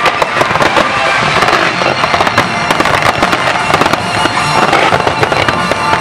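A dense fireworks barrage: aerial shells and low fountain and comet effects going off in rapid, continuous bangs and crackles, with no pause between them.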